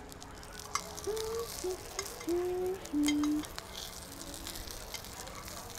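Pork chop sizzling as it sears in a very hot pan, with scattered sharp pops and clicks of tongs moving the meat. A brief run of short, steady tones of changing pitch sounds over it about a second in, lasting a couple of seconds, the loudest part.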